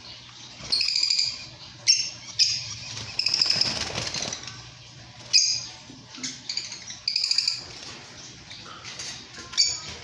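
Lovebirds chirping: short, high-pitched calls in repeated bursts, some in quick series, every second or so.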